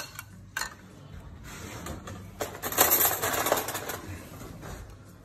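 Metal ladle and utensils clicking against a glass bowl and plate while serving pasta: a couple of sharp clicks at first, then a longer scraping rustle lasting over a second from about two and a half seconds in.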